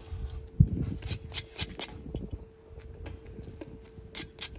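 Quick runs of sharp metallic clicks or clinks, about five in a second, heard twice, with a dull thump about half a second in. A faint steady hum lies underneath.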